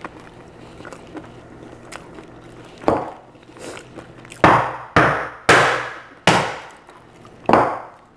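Boiled giant lobster claw being pounded to crack its shell: a lighter knock, then five hard blows about half a second to a second apart, each ringing out briefly.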